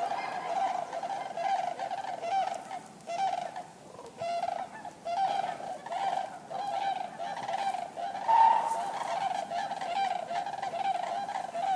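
A flock of common cranes calling, many overlapping honking calls in quick succession, with a brief lull about four seconds in and one louder call a little past eight seconds.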